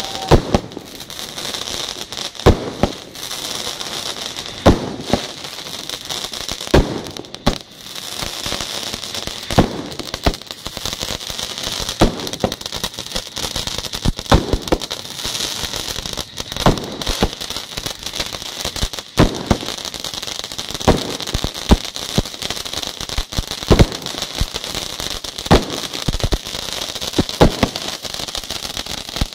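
Firework display: ground fountains hiss steadily as they spray sparks, with sharp bangs every second or two from shots going off.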